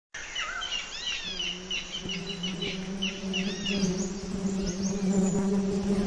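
Small birds chirping in many short calls that rise and fall, over a steady low buzz of wasps flying around their paper nest, which sets in about a second in.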